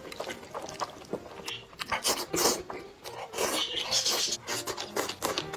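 A person eating noodles: repeated wet slurps and chewing, with the longest slurps about two seconds in and again around four seconds in.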